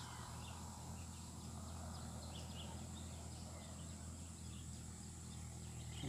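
Faint outdoor ambience: a steady low rumble with scattered faint, short bird chirps.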